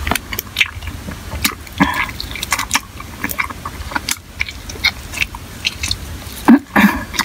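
Close-up chewing of crispy fried chicken wings: irregular crunching and crackling bites with wet mouth sounds, and one louder moment near the end.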